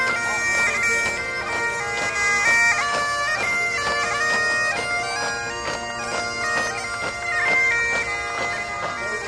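Bagpipes playing a marching tune over steady drones, the melody stepping between held notes with quick grace-note flourishes.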